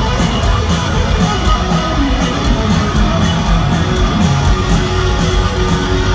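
Live rock band playing loud over a stadium PA, heard from the crowd: electric guitars, bass and a steady drum beat.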